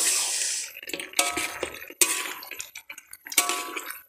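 Metal spoon stirring and scraping chicken pieces in saucy gravy around a metal wok, in several short strokes about a second apart with light clinks of spoon on pan.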